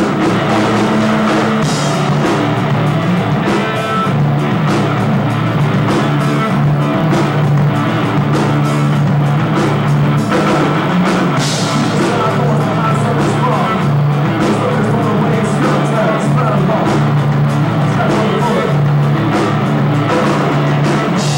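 Live rock band playing a song: electric guitars, bass guitar and drum kit, loud and steady throughout.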